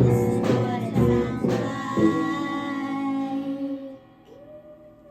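A live student rock band ending a song: four closing hits about half a second apart, then a final held chord that rings and fades away about four seconds in.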